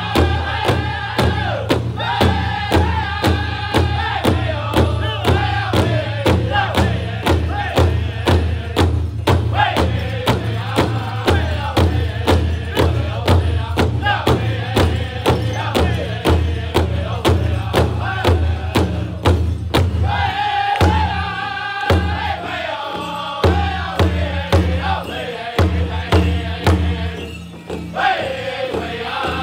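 Powwow drum group: several singers strike one large hide-headed drum together with beaters in a steady beat of about two strokes a second, singing loudly in unison over it. About twenty seconds in the drumming and singing drop back and go on more softly, and near the end a new high line of singing starts.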